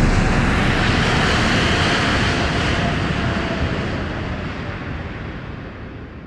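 Jet aircraft passing and flying away: a loud, broad rushing engine noise that fades steadily over several seconds.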